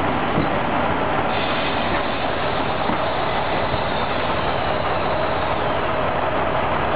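Running noise from the bogie of a 1950s Brossel-built ES401 railcar rolling along the track: a steady rumble and rattle of wheels on the rails and the working suspension, heard close up at the wheels.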